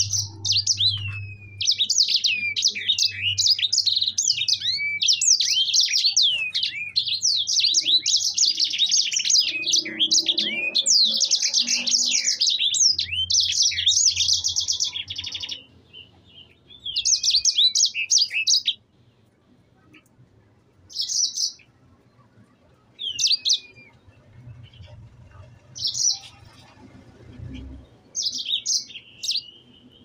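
Caged sanger (grey singing finch) singing: a long, fast twittering song of rapid high notes and falling slurs for about fifteen seconds, then breaking into short separate phrases every two or three seconds.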